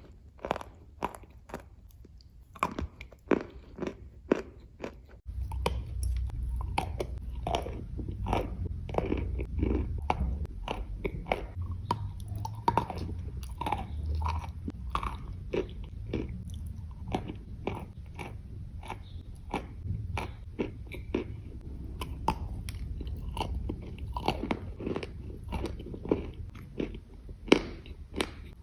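Edible clay being bitten and chewed: a steady run of crisp, dry crunches.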